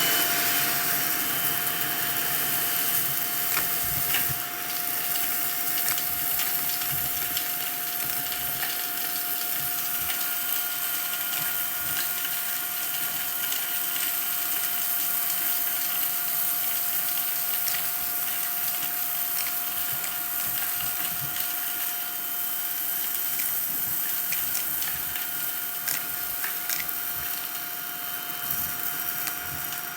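Vacuum cleaner switched on and running steadily with a constant whine, sucking up coins that rattle and click through the nozzle and hose at irregular moments.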